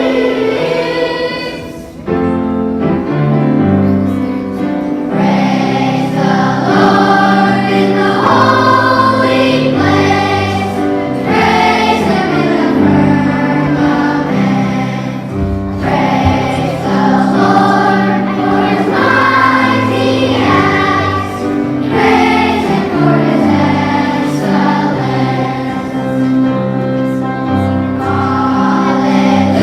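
Children's choir singing a song with instrumental accompaniment under it. The music dips briefly about two seconds in, then the next phrase begins.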